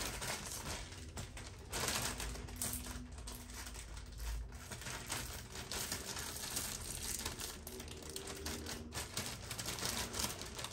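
Clear plastic vacuum storage bag crinkling as its press-seal zipper closure is pinched shut along the edge, with many small, quick clicks.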